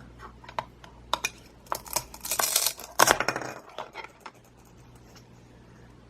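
Plastic toy knife cutting a Velcro-joined toy mushroom on a plastic cutting board: light plastic clicks and taps, a short Velcro rip about two seconds in, and a sharper clack a moment later as the halves come apart, then it goes quiet.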